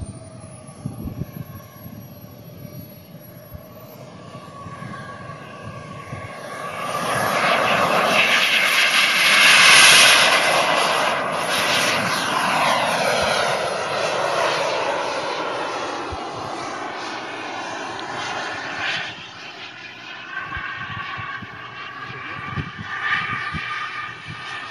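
Radio-controlled model jet's turbine engine on its takeoff run and climb-out. A high whine rises in pitch over the first few seconds, then the sound builds to its loudest about ten seconds in as the jet passes. Its pitch falls as it goes by, and it fades slowly as the jet climbs away.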